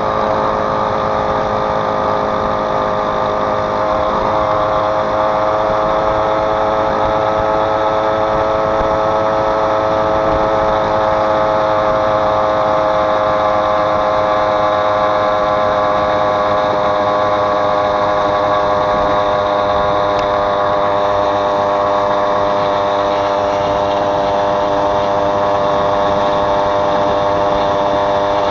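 A vehicle's engine running steadily under way, its pitch rising slowly over the first ten seconds or so and then holding.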